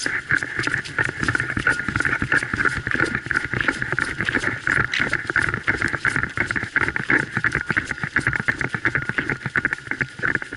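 Hurried footsteps crunching through snow on a frozen lake, a dense, continuous crunching and rustling close to the microphone that stops suddenly at the end.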